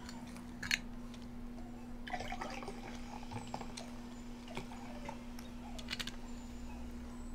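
Quiet, wet eating sounds: scattered mouth clicks and a brief spell of light crackling about two seconds in, over a steady low hum.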